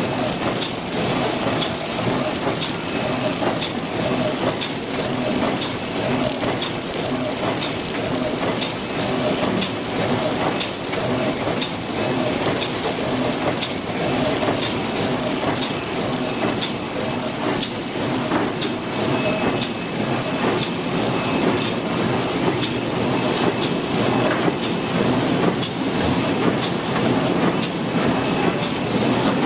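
Automatic hamburger flow-wrapping and shrink-packing line running: conveyor belts and wrapper mechanism give a steady mechanical rattle with frequent sharp clicks.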